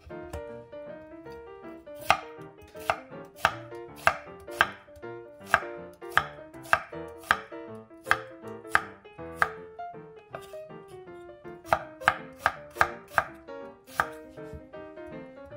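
Kitchen knife chopping an onion on a wooden cutting board: sharp strikes of the blade on the board, roughly two a second, with a short pause about two-thirds of the way through.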